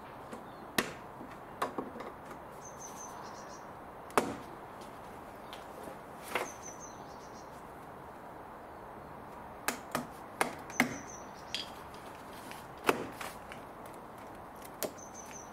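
Plastic retaining clips of a Mercedes CLK W208 door card snapping loose as the panel is pried and pulled off the door: about ten sharp snaps at irregular intervals, several in quick succession around ten seconds in.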